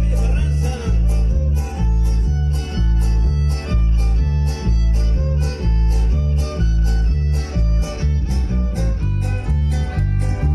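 Son music played on violin and guitar over a strong, steady bass beat.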